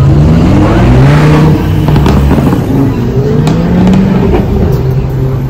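C8 Corvette's V8 accelerating past and away, the engine note climbing, dipping as at a gear change, and climbing again, with a few short sharp cracks along the way.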